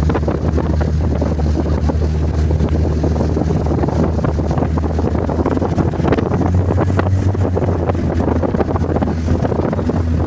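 Motorboat engine running steadily under way, a constant low hum, with wind buffeting the microphone and water rushing past the hull.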